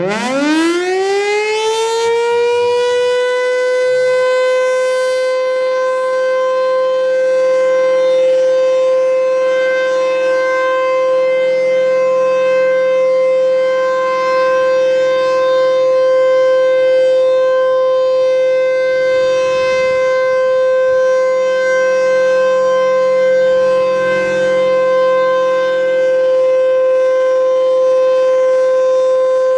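Federal Signal Thunderbolt 1000 tornado siren winding up from a stop: its pitch climbs fast over the first two to three seconds, then holds one steady, loud tone. This is a test sounding of the siren.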